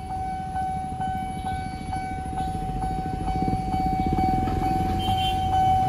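Railway level-crossing warning alarm sounding a steady high electronic tone with a regular tick about three times a second, the signal that a train is approaching and the barriers are closing. Cars and motorbikes rumble across the tracks underneath, a little louder toward the end.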